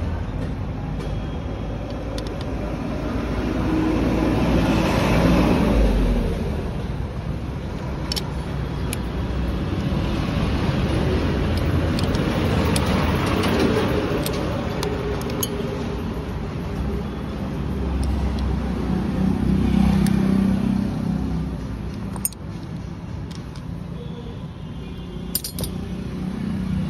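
Road traffic: vehicles pass one after another, each swelling and then fading, with a falling pitch as the first one goes by.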